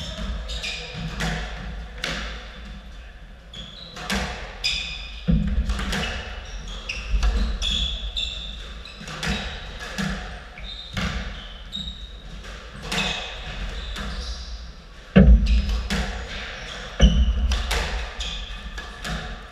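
Squash rally: a steady run of sharp cracks as the ball strikes rackets and the court walls, mixed with short squeaks of court shoes on the wooden floor. Two heavy, louder thumps come late on.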